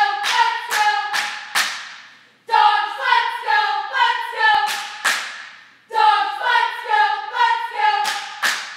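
A small group of female cheerleaders chanting a cheer in unison, shouted in a sing-song, with sharp claps on the beat. It comes in three phrases of about two seconds each with short pauses between, echoing off the gym walls.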